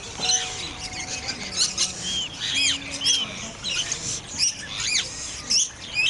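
Many small birds chirping, with short calls that rise and fall in pitch, several each second and overlapping.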